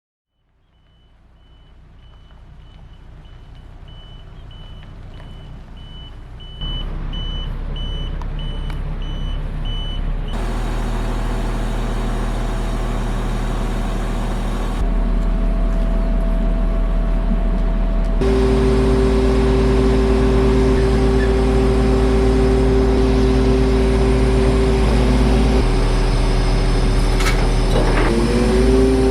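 Delivery truck reversing with its reversing alarm beeping steadily, stopping about ten seconds in. Its engine runs underneath and grows louder into a steady hum, with a rise in pitch near the end.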